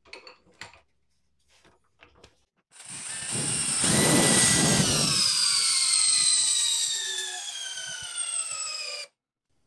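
A DeWalt cordless drill in low gear (speed 1, drill mode) drives a large lag screw into a wooden post with no pilot hole, starting about three seconds in after a few handling clicks. The motor's whine falls steadily in pitch as it slows under the rising load, then cuts off abruptly near the end.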